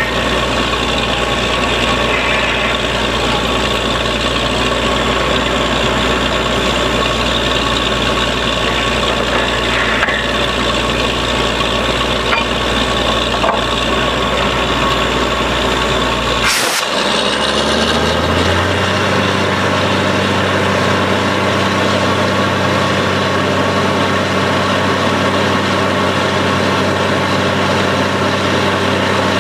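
Truck-mounted borewell drilling rig running steadily. About halfway through there is a sharp click, and the machine's low note changes to a steadier, lower hum. By the end, mud and cuttings are being blown out of the hole around the drill pipe.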